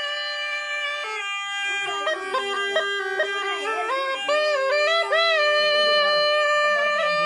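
Murli, the Rajasthani gourd double pipe, playing a steady drone under a melody that bends and flicks through quick ornaments, with a reedy, bagpipe-like tone.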